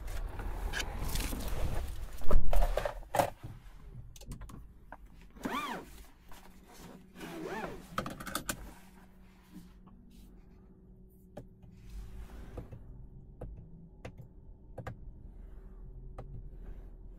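Inside the cabin of a 2024 MG3 Hybrid+: rustling, then a loud thunk about two seconds in, like a car door shutting. Two short ringing tones follow, with scattered clicks, and from about halfway a faint steady hum.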